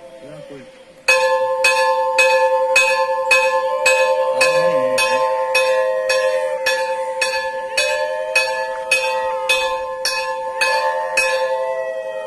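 A metal bell struck over and over at about two strikes a second, starting about a second in, its ringing tone carrying on between strikes.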